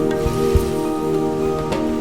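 Background music: held, ringing notes with a few struck accents.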